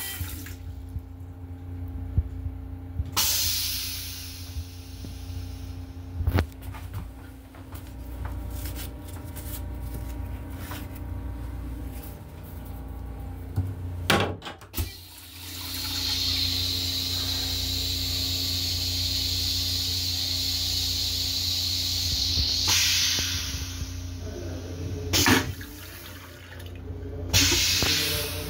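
Railcar restroom toilet flushing: a sudden clunk about halfway through, then a steady rush of rinse water for about seven seconds, ending in a few short loud bursts. A steady low hum runs underneath.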